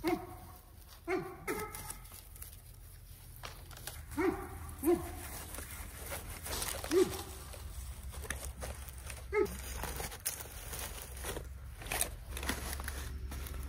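A dog giving short yips, about seven in all, each dropping in pitch, spread irregularly over the stretch. Scattered rustling and knocking runs between them.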